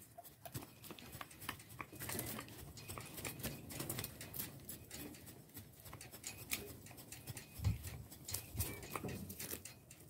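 Small hand hoe scratching and rustling through dry mulch, working freshly scattered mustard seed into the bed, with a steady run of irregular scrapes and clicks. A low thump comes about three quarters of the way in.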